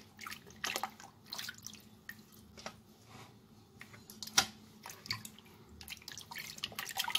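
Hands swishing and rubbing raw chicken pieces in a bowl of water: irregular small splashes and drips, the loudest splash about four seconds in.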